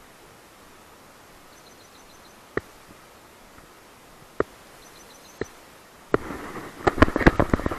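Spinning rod and reel being handled: three sharp clicks a second or two apart, then from about six seconds in a louder, dense jumble of clicking and rustling. Beneath it is a steady outdoor hiss with two short runs of faint high chirps.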